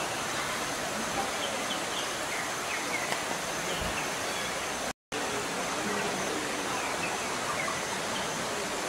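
Steady rushing of water from a shallow stream running over rocks, with faint short chirps here and there. The sound cuts out for a split second about five seconds in.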